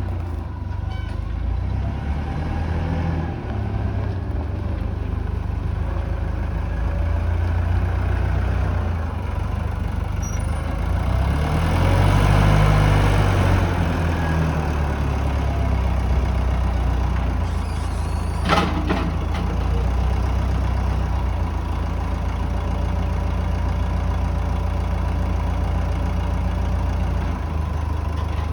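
Swekip 2550 wheel loader's diesel engine running steadily, getting louder for a couple of seconds about halfway through, with a single sharp knock about two-thirds of the way in.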